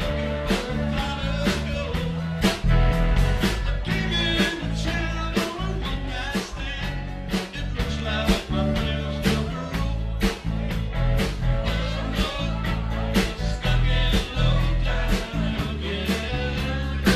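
Live rock band playing through a PA: a drum kit beating a steady rhythm, electric bass and electric guitar.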